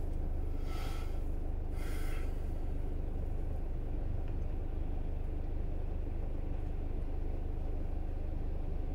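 Car being driven, a steady low rumble of engine and road noise, with two short hisses about one and two seconds in.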